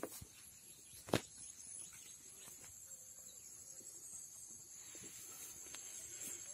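Insects chirring in a steady, high-pitched buzz, with one sharp knock about a second in.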